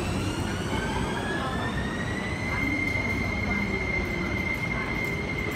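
MTR electric train pulling along the platform, its traction motors whining in a tone that rises for about two seconds and then holds steady, over the rumble of wheels on the track.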